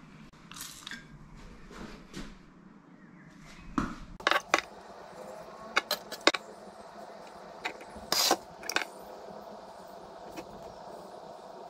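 Scattered clicks and short knocks from handling things at a kitchen counter, several sharp ones bunched about four to six seconds in and a longer, hiss-like burst about eight seconds in, over a faint steady hum.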